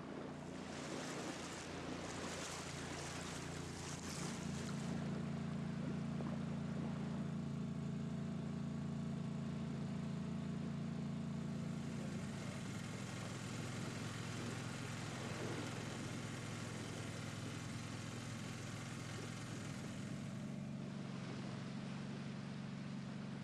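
A small sailing boat's outboard motor running steadily under way, its hum shifting slightly in pitch a couple of times. Water hisses along the hull in the first few seconds.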